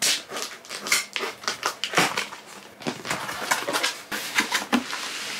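Cardboard box and packaging being opened by hand: a run of irregular crackles, rustles and sharp clicks.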